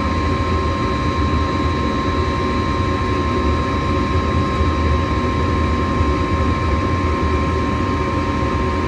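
Gas furnace blower running steadily on a call for heat, a constant whirring hum with a steady high whine over it, while the igniter heats up before the gas valve opens. No igniter click stands out.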